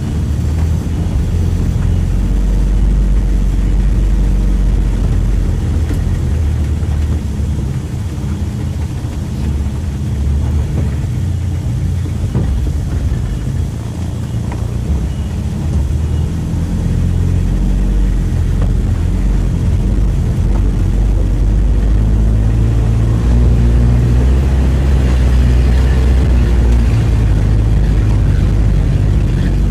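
Mitsubishi L300 pickup's engine running under way, heard from inside the cab. The engine note rises and falls with throttle and gear changes, dipping for a moment around the middle.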